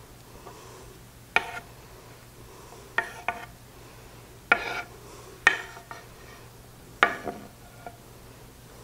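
Knife blade scraping chopped cooked chicken off a wooden cutting board into a ceramic mixing bowl: a series of short, sharp scrapes and knocks, irregularly spaced about a second apart.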